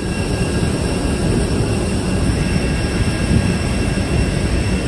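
Steady rumble of a jet airliner's cabin noise, engines and airflow heard from inside the cabin, with a faint steady high whine over it.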